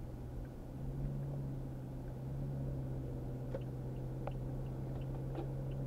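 Car engine drone and tyre and road noise heard from inside the cabin while driving, a steady hum that rises slightly about half a second in. A few faint clicks sound over it.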